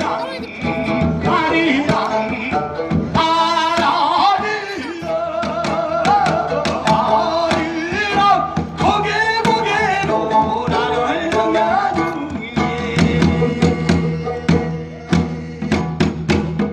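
Korean traditional folk singing with a wavering, heavily ornamented male voice, accompanied by a plucked long-necked lute and a drum. The drum strokes come faster and sharper from about two-thirds of the way in.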